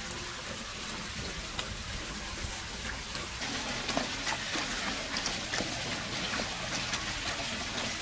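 Hands tossing chunks of tomato, carrot and pineapple in sauce in a stainless steel bowl: wet handling sounds and small ticks against the bowl, busier from about three seconds in, over a steady hiss.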